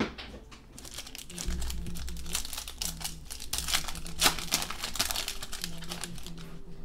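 A 2015 Panini Crown Royale football card pack being torn open by hand, its wrapper crackling and crinkling in a dense run of sharp crackles that peaks about four seconds in. A single sharp click comes right at the start.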